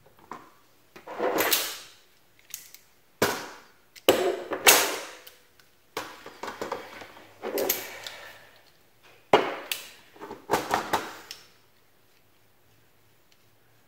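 Pliers and locking pliers clacking and scraping against a plastic cable gland, dry box and worktable while the gland's outer nut is tightened and the tools are swapped. It comes as a string of about eight short clatters over roughly ten seconds, then stops.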